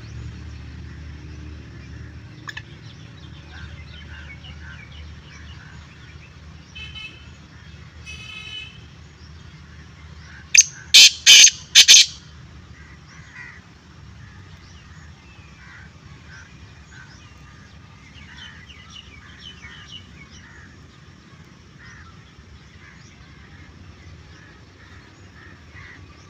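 Black francolin calling: one loud group of about five sharp notes within under two seconds, about ten seconds in. Faint chirps of other birds and a low rumble lie underneath.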